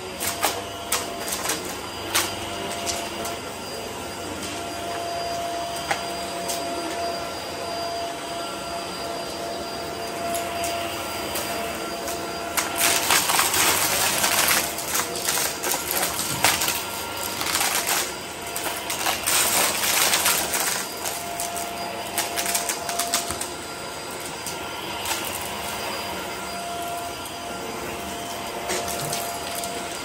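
Hart Pro upright vacuum running on carpet, its motor giving a steady whine, with crackling and rattling as it sucks up crunchy, colourful debris. The rattle grows dense and louder in two spells, about halfway through and again a few seconds later.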